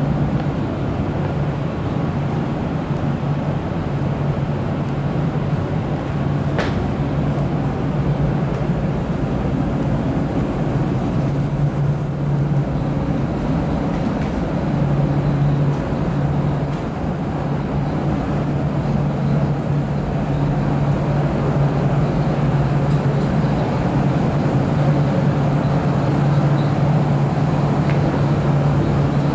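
Steady low hum and air noise of the equipment hall of an AXE10 telephone exchange, with one faint click about seven seconds in.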